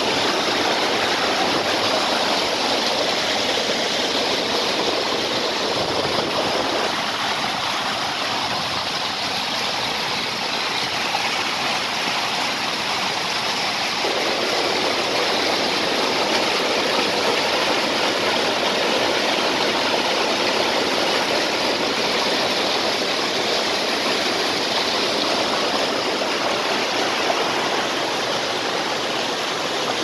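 Mountain stream rushing and splashing over rocks and a small waterfall: a steady, loud rush of water.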